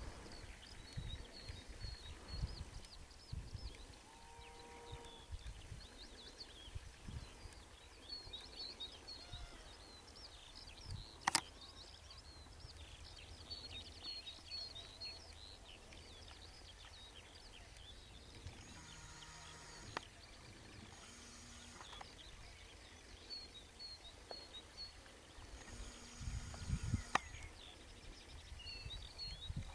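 Faint open-country ambience of many small birds chirping and singing, over an irregular low rumble, with one sharp click about a third of the way through.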